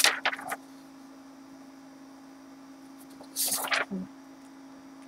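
A sheet of scrapbook paper rustling as it is handled right up against the webcam microphone, with one louder rustle just past the middle. A steady electrical hum runs underneath.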